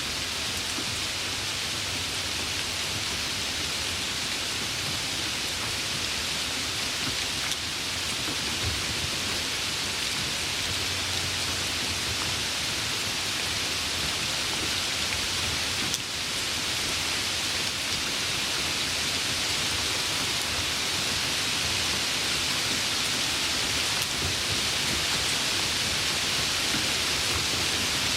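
Steady rain falling, an even, unbroken hiss of rain with no single drops or gusts standing out.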